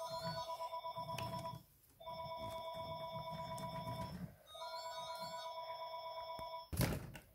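A telephone ringing: a steady two-tone ring repeated three times, each ring about two seconds long with short pauses between. A single thump near the end.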